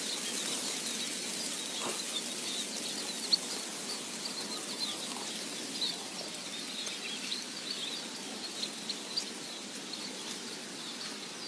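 Small birds giving many short, high chirps over a steady outdoor hiss, with a few faint ticks.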